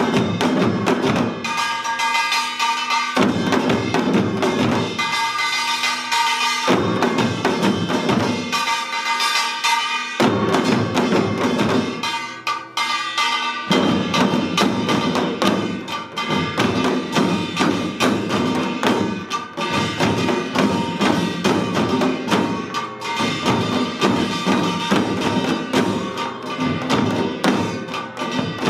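Korean samulnori ensemble playing a Yeongnam-style rhythm: many janggu hourglass drums and buk barrel drums struck together, with the metallic ringing of gongs over them. In the first half the drumming comes in phrases with short breaks about every three and a half seconds; from about halfway it runs on without break.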